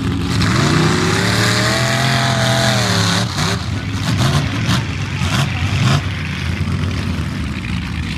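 Mud truck's engine revving hard in a mud pit: the pitch climbs over the first second or so and is held high, then drops off abruptly about three seconds in. A lower, uneven engine rumble with scattered sharp crackles follows.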